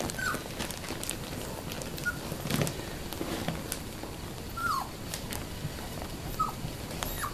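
Four-week-old standard poodle puppies giving a few short, high whimpers that drop in pitch, a second or two apart, over soft rustling and small knocks from the blanket as they move about.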